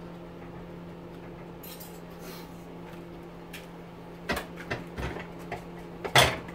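Metal clinks and knocks of pump parts being handled at a bench vise on a steel-topped workbench: a few sharp strikes from about four seconds in, the loudest just before the end. A steady low hum runs underneath.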